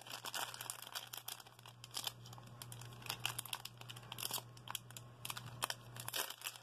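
Clear plastic packaging bag crinkling and rustling in irregular crackles as hands open it and pull the keychain out, over a faint steady electrical hum.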